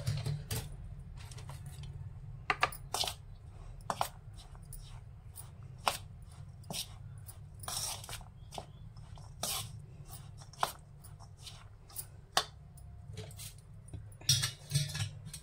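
Steel spoon clinking and scraping against a stainless steel bowl while stirring crumbly rice-flour dough, in irregular strikes about one or two a second, with a louder cluster near the end.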